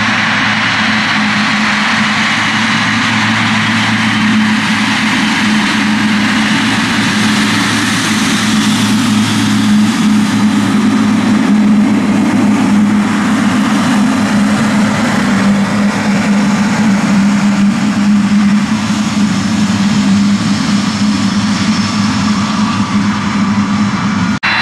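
Boeing 777-300ER's twin GE90 jet engines running at low taxi thrust as the airliner taxis: a steady low drone with a rushing hiss and a faint high whine.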